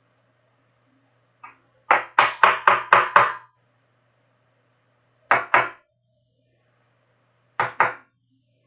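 Sharp knocks of a hard plastic card holder being handled and tapped on a tabletop. After a faint first tap there is a quick run of about six knocks, then two pairs of knocks a couple of seconds apart.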